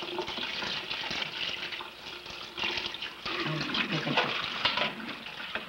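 Tap water running and splashing into a sink, coming and going unevenly.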